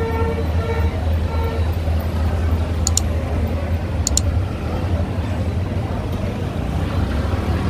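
Street traffic with a steady low engine rumble. A vehicle horn sounds a few short toots in the first second and a half, and two quick pairs of sharp clicks come about three and four seconds in.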